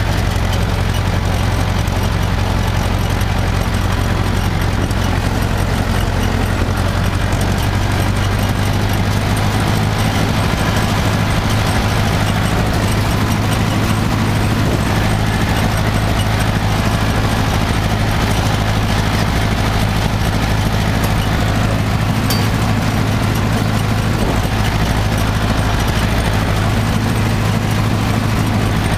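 Tractor diesel engine running steadily at working speed in third gear, pulling a PTO-driven hay rake, with a constant low hum.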